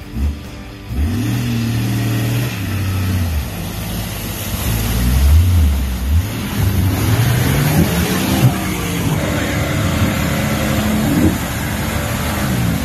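Nissan Safari 4x4's engine revving hard as it drives through a deep mud bog, the revs rising and falling over and over from about a second in.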